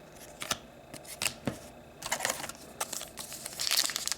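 Trading cards handled with a few sharp taps and flicks, then about two seconds of crinkling and tearing as a foil trading card pack wrapper is pulled open.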